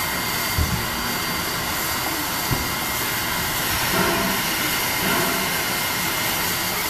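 Steam locomotive standing with its train, steam escaping in a steady hiss at its front end. Two brief low thumps come in the first few seconds.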